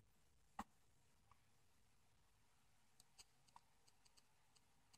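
Near silence, broken by faint clicks from handling the keychain spy camera's bare circuit board while powering it on: one small click about half a second in, then a few fainter ticks around three to four seconds in.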